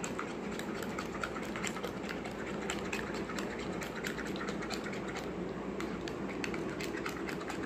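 A spoon stirring a thick, creamy mango and hung-curd sauce in a small glass bowl. It makes a quick, irregular run of light clicks and taps against the glass.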